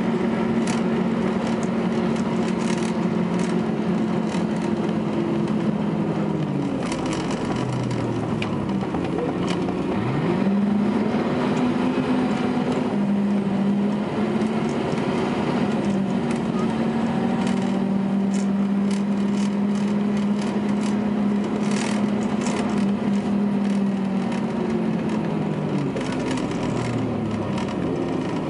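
Volvo B10BLE bus's rear-mounted six-cylinder diesel engine thrashing under way, heard from inside the saloon with the engine cooling fan running. The engine note falls about a quarter of the way in as the bus slows, picks up again around ten seconds with a gear change soon after, holds steady, and falls again near the end, with rattles from the bodywork throughout.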